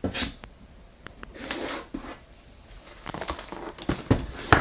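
Cardboard keyboard box being handled and turned over: rustling and scraping with a few small knocks.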